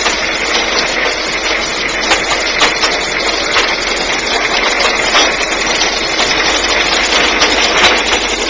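An engine running steadily under a broad, even rushing hiss, with a few faint clicks scattered through.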